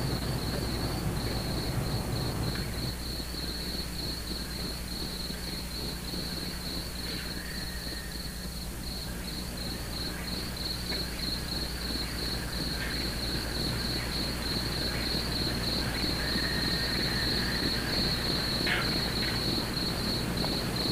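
Crickets chirring: a continuous, finely pulsing high trill, with a steady low hum beneath.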